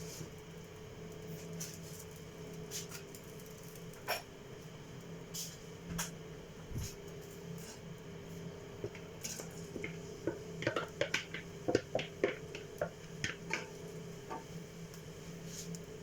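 Kitchen utensils and dishes being handled: scattered light clicks and knocks, with a quick cluster of clicks a little past the middle, over a steady low hum.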